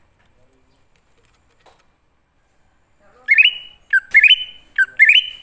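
Green leafbird (cucak ijo) calling: after a quiet start, three loud whistled phrases in quick succession, each sliding up and then holding a high note. This is a lure call to draw in wild leafbirds.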